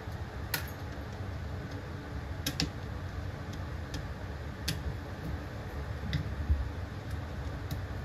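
Scattered sharp clicks and taps of a screwdriver and small metal parts as screws are worked out of a Lasko box fan motor, about seven irregular clicks over a steady low background noise.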